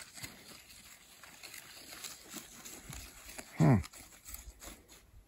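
Faint rustling and small handling clicks, then about three and a half seconds in, one short vocal sound from a person, falling in pitch like a grunt.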